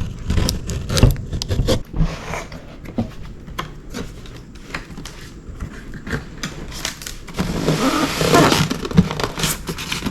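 Cardboard box and packaging being opened and handled: a string of scrapes and clicks, then a louder stretch of rustling and crackling about three-quarters of the way in.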